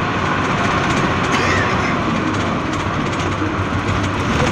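Steady engine hum with road and wind noise inside a bus cabin travelling at speed.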